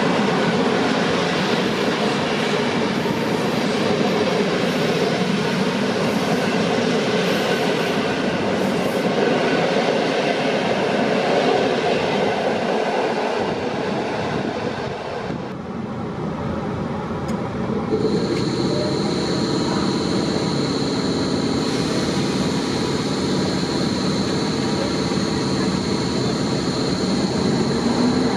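Train running on the rails, with a steady rumble and rattle of wheels on track. About two thirds of the way through the sound changes, and a steady high whine joins it.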